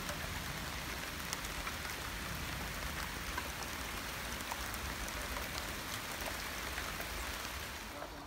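Rain falling in a thunderstorm: a steady hiss dotted with many small drop ticks, dropping away near the end.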